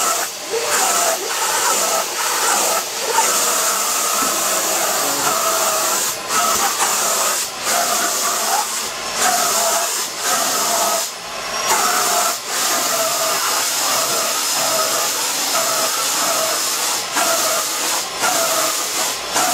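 Vacuum cleaner running with a steady hiss and a whine that wavers in pitch, broken by brief dips now and then as the nozzle is drawn over a pet's fur.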